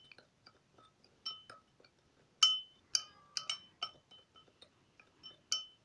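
A small metal spoon clinking against a ceramic bowl while stirring a dry powder: irregular light taps that ring briefly, the loudest about two and a half seconds in.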